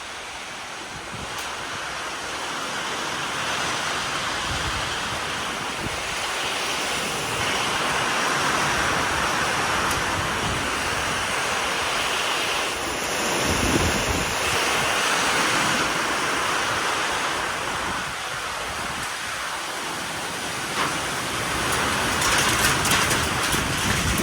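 Strong squall-line wind roaring, swelling and easing in gusts.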